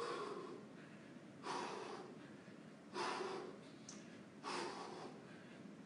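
Heavy, hard breathing of a man shadowboxing at full effort: a sharp breath about every second and a half, four in all, each fading out before the next.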